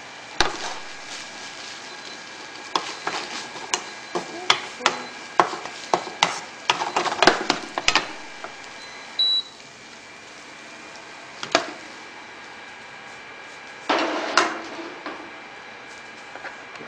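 Spatula knocking and scraping against a frying pan as rice is stir-fried on an induction cooktop, many quick knocks over a steady sizzle. Just after nine seconds a short high beep, and the steady hum drops a little as the cooktop is switched off; a clatter follows around fourteen seconds as the pan is handled.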